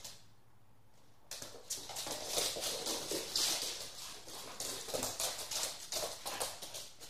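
Dogs moving about: a rapid run of light taps, clicks and scuffles that starts about a second in.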